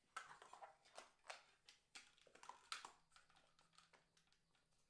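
Faint clicks and taps of small plastic toy parts and modelling dough being handled on a tabletop, several in the first three seconds, then a faint low hum.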